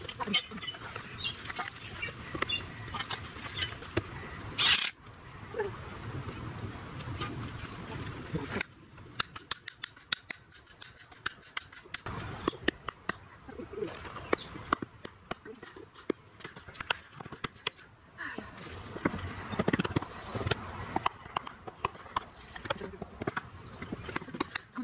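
Small sledgehammer striking a perforated steel stake being driven into the ground: a run of sharp, irregular knocks, thicker in the second half.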